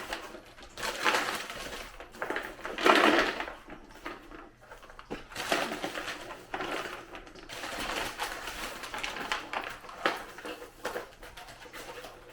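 Irregular rustling, crinkling and light clatter of candy packaging and candies being handled and set out on a board.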